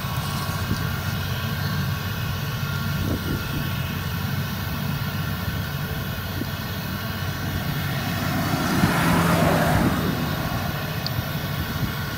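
Claas Lexion 770 TT combine harvester running steadily under load while threshing rapeseed, a continuous engine and machinery drone. A louder rushing noise swells up and fades about eight to ten seconds in.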